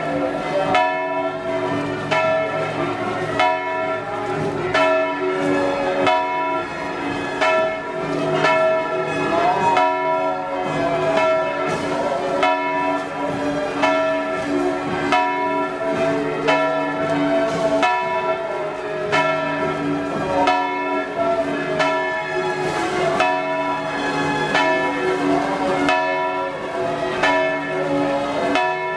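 Church bells ringing a continuous festive peal, struck again and again so that their tones overlap and ring on.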